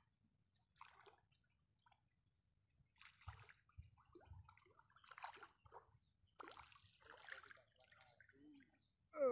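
Faint, scattered splashing and sloshing of a hooked fish fighting at the water's surface as it is played on a fixed-line fishing pole. A loud falling cry starts at the very end.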